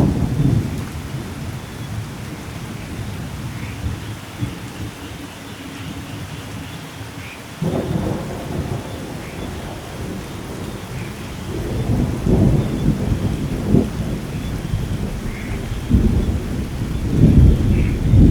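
Steady rain falling, with rolling thunder: a low rumble swells up about eight seconds in, and further peals rumble through the second half.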